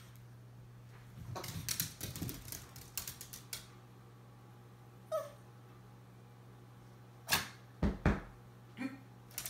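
Miniature pinscher's nails clicking on a hard floor, then short, sharp barks: one about five seconds in and a few close together near the end.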